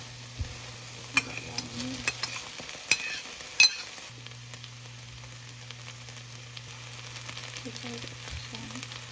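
Food sizzling and frying in a hot pan, a steady hiss, with several sharp clicks of a utensil against the pan in the first few seconds.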